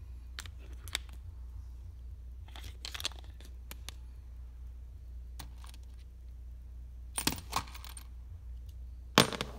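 Scattered light metallic clicks and clinks of a screwdriver tip prodding small metal screws, with a few sharper knocks, the loudest near the end.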